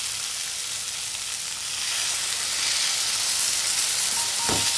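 Soya chunks and onion masala sizzling in a hot nonstick pan. The sizzle grows stronger about two seconds in as water is poured in. A single knock near the end.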